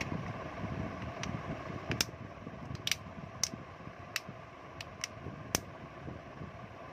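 Plastic back cover of a Redmi Go phone being pressed onto its frame: about eight sharp clicks as its clips snap into place one after another. A steady hum runs underneath.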